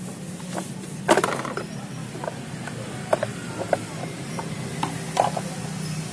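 Yamaha Mio J scooter's single-cylinder four-stroke running with the rear wheel turning: a steady low hum with irregular clicks and creaks, the 'krik krik' noise that the mechanic puts down to a worn rear axle bearing.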